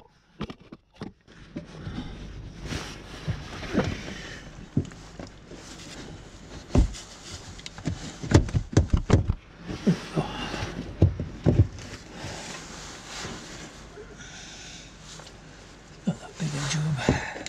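Irregular clicks, knocks and scraping as a Polaris Ranger's air filter is worked by hand into its housing.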